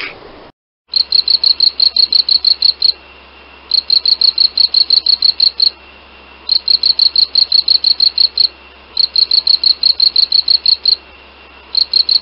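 Cricket-like insect chirping: trains of rapid, high chirps, about six or seven a second, each train lasting about two seconds with short pauses between. It cuts in after a brief silence about a second in.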